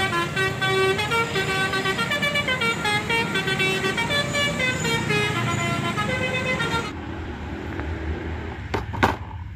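Indonesian 'telolet' bus horn (a Basuri multi-tone air horn) playing a fast melodic tune of short stepping notes over street traffic, stopping about seven seconds in. After that, fainter traffic noise and a few sharp clicks near the end.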